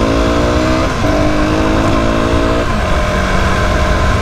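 Mondial SMX 125i supermoto's 125 cc single-cylinder engine accelerating: its pitch rises, drops at an upshift about a second in, rises again, and drops at a second upshift past halfway before running steadier.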